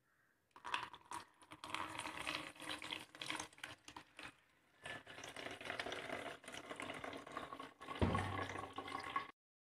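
Blended carrot juice pouring from a mixer jar into a stainless steel mesh strainer, splashing and trickling through the mesh, with a short lull midway. A knock about eight seconds in is the loudest sound, and the sound cuts off suddenly just before the end.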